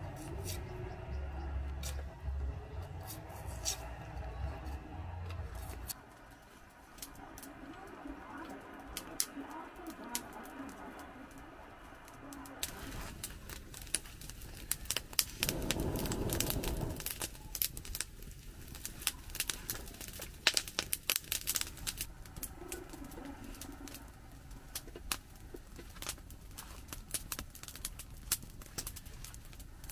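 A knife scraping and shaving the skin off a root, then a wood campfire crackling with many sharp pops, and a brief rushing sound about halfway through.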